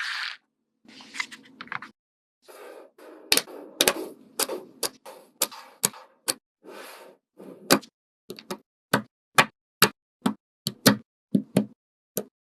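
A run of sharp taps and clicks, with short stretches of rustling in the first half; in the second half the clicks come alone at about two a second.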